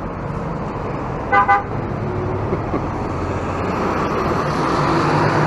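Street traffic with one short vehicle horn toot about a second and a half in. Engine and road noise from passing vehicles grows louder toward the end.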